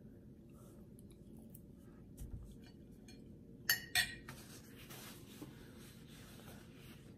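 A ceramic dinner plate being set down on the table, giving two sharp clinks close together about four seconds in. Fainter dish-handling clicks and a soft thump come before it.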